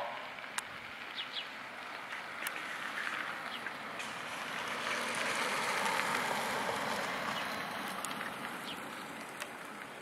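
A vehicle passing by: a steady rush of noise that swells to a peak about halfway through and fades away again. A few short bird chirps sound over it.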